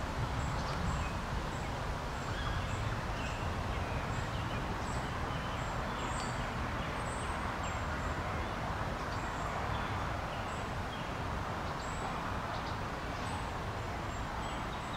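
Steady outdoor background noise with a low rumble, and faint, short high chirps scattered through it.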